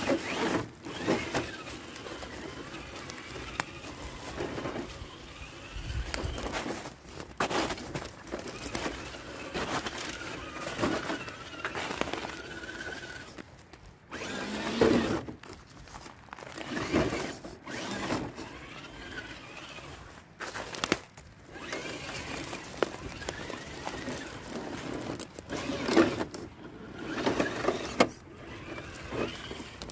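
Associated Electrics Element Trailrunner RC crawler driven in short, irregular spurts, its electric motor and drivetrain whining under throttle, with scraping and knocking as it works over rough ground.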